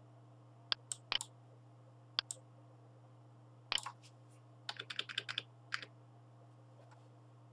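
Sharp clicks of a computer mouse and keyboard while the graphics card's fan-speed slider is being set: scattered single and double clicks, then a quick run of about eight clicks around five seconds in, over a faint steady low hum.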